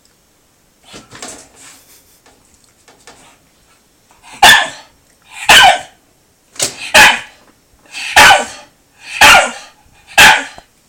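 Shiba Inu barking: about seven loud, sharp barks roughly a second apart, two of them in quick succession, after a few seconds of faint scuffling.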